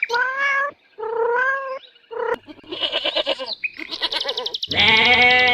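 Sheep bleating: a series of separate calls, the later ones wavering, with a long, loud bleat starting near the end.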